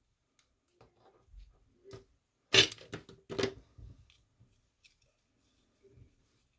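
Rustling and scraping of a paper card panel and linen twine being handled on a cutting mat as the twine is wrapped and tied, with two louder scrapes close together near the middle.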